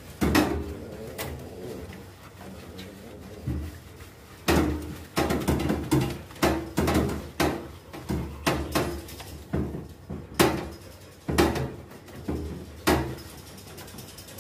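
Shih Tzu whining and yelping in short cries, about one a second, while being shampooed in a steel grooming tub, with a few sharp knocks against the tub.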